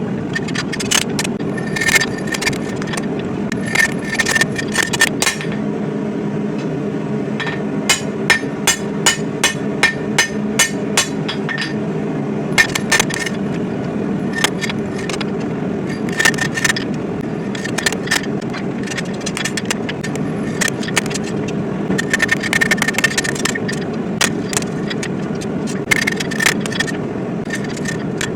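Hammer blows on hot steel at the anvil, coming in irregular runs of strikes, some with a short metallic ring, over the steady roar of a propane forge burner.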